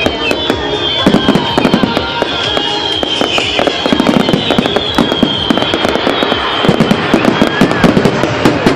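Fireworks display: a dense, rapid run of crackling bangs and pops throughout, loud and close together.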